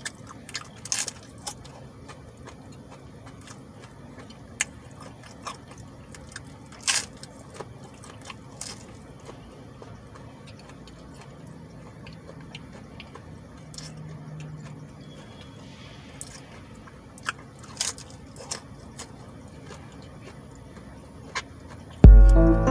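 A man chewing a mouthful of taco, with scattered short sharp clicks of eating over a quiet steady hum. Music starts loudly near the end.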